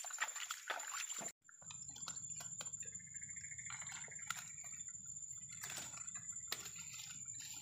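Faint water dripping and small splashes at a swamp's edge, against a steady high thin tone. The sound drops out briefly about a second and a half in.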